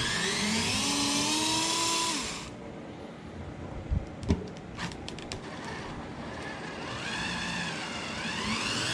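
Small cordless power screwdriver whirring, its pitch rising as the motor spins up, then stopping about two and a half seconds in. A few sharp metallic clicks follow, and the driver whirs up again near the end.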